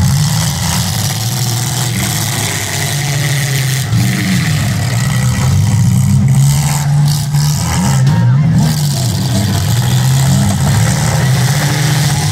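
Several demolition derby cars' engines revving, their pitch rising and falling over and over as they accelerate and back off, loud and continuous.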